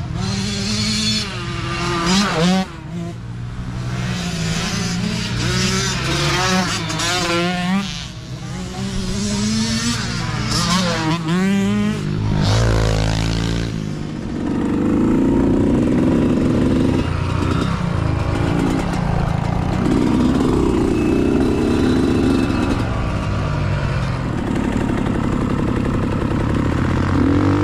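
Mini dirt bike engine racing, heard on board. For about the first half it revs up and down again and again through the throttle and gear changes, then it settles into a louder, steadier run.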